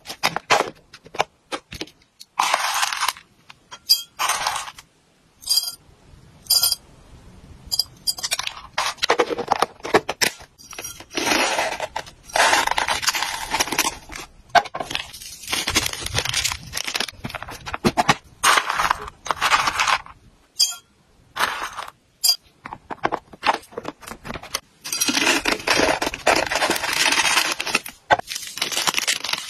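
Dry hamster food pellets poured out in several runs of a second or two, rattling into a ceramic jug and into a small bag. Between the pours come many sharp clicks and taps from a plastic food tub with snap latches.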